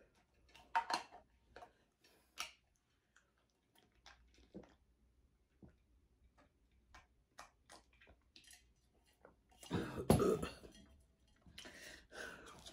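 Close-up mouth and handling noises of a person eating and drinking from a tumbler: small scattered clicks and sips, with one louder, noisy sound lasting about half a second around ten seconds in.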